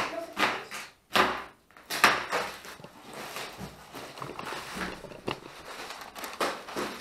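Bed parts being unpacked: two sharp knocks about one and two seconds in, then a steady rustle of plastic wrapping and cardboard with small clicks.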